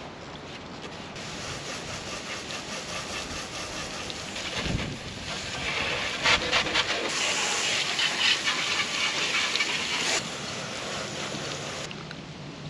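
Water jetting from a hose sprayer onto a racing kart. It starts about a second in, is heaviest in the middle as the spray hits the kart, and cuts off near the end.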